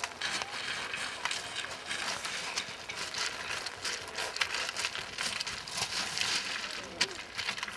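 Fell runners' shoes crunching and clattering on loose scree as they run downhill: a jumble of irregular stone clicks and scrapes, with one sharper knock near the end.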